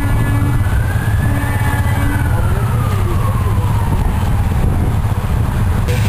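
A siren wailing slowly, rising and then falling in pitch over several seconds and starting to rise again near the end, over the low rumble of cars driving slowly past.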